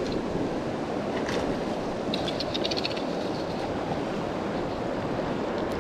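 Fast-flowing river rushing steadily. A little after two seconds in comes a short burst of rapid clicking from the fly reel as a hooked trout is played.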